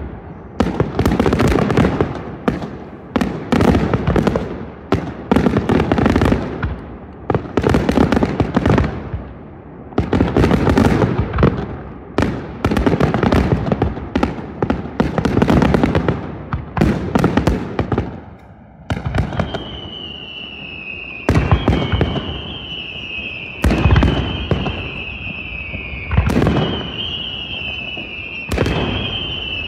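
Aerial fireworks shells bursting in quick succession, each bang trailing off in crackle. About two-thirds in, the rapid bursts give way to a high whistle that slides slowly down in pitch again and again, broken by single heavy booms every two seconds or so.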